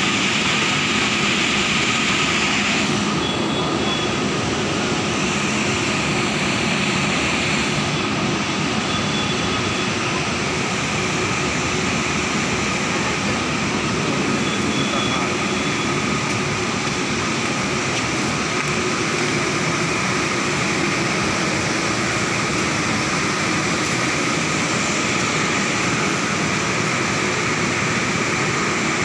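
WAG-9 electric locomotive standing at the platform with its cooling blowers running: a loud, steady whirring roar with a faint high tone over it.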